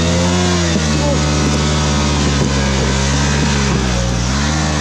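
Motorcycle engine running steadily, its pitch rising and falling slightly just after the start and again near the end.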